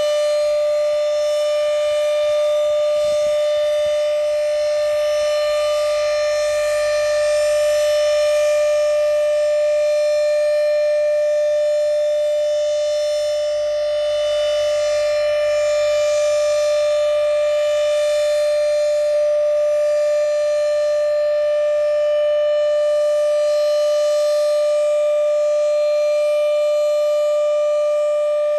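Federal Signal Thunderbeam (RSH-10) outdoor warning siren sounding the Alert signal: one steady, unbroken tone, swelling gently every eight seconds or so. This is the monthly county test of the siren.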